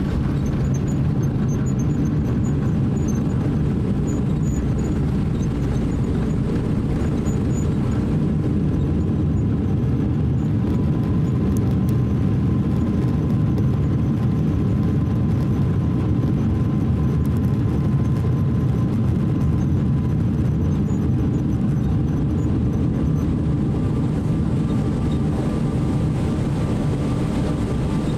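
Cabin noise of a Boeing 777-300 rolling along a wet runway after landing: a steady low rumble of engines and wheels, with a faint thin whine added for about ten seconds in the middle.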